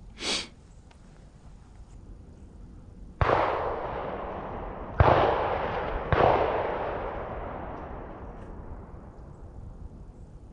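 Three shotgun shots, about two seconds and then one second apart, each rolling away in a long echo.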